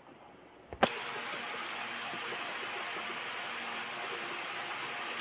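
A wire whisk beating thick egg-and-besan batter in a steel bowl, a steady swishing, starting after a sharp click about a second in.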